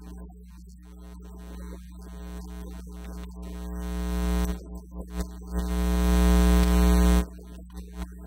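Steady electrical mains hum, with a sustained synthesizer chord that swells louder and cuts off suddenly about seven seconds in.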